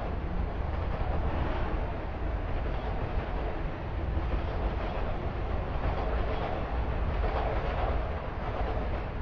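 Steady city traffic noise, with a low wind rumble on the microphone.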